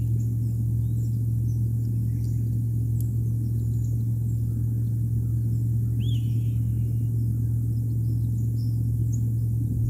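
A steady low hum, with faint high chirps scattered through it and one short, louder call about six seconds in.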